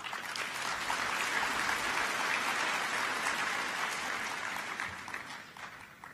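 A large seated audience applauding: the clapping starts at once, holds steady, and dies away over the last second or two.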